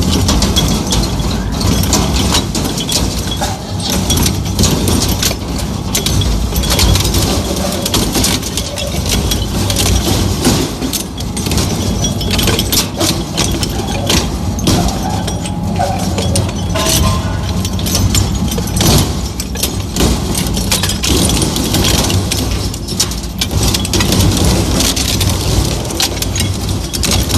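Heavy crushing or shredding machine running and grinding material, with a steady low rumble and many sharp clanks and clinks.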